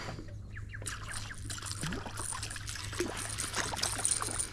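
Water splashing and trickling as a hooked redfin thrashes near the surface, the splashing starting about a second in and building toward the end, over a low steady hum.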